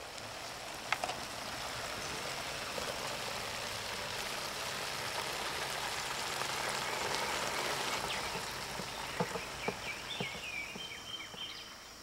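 Rural morning outdoor sound: a steady dense hiss of natural background with a few faint clicks, and birds chirping, most clearly near the end.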